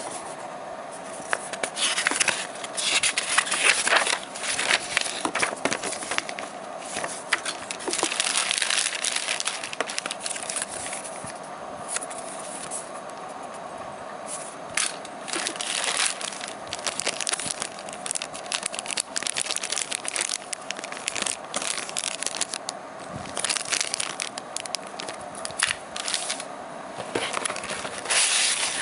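Paper and thin plastic packaging handled by hand: a folded paper manual, a disc in a paper sleeve, clear plastic bags and a cardboard box rustling and crinkling, with scattered clicks and taps in uneven bursts. A faint steady hum runs underneath.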